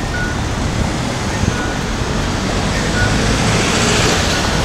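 Wind buffeting the microphone over a steady wash of traffic noise, with a rushing hiss that swells about three seconds in.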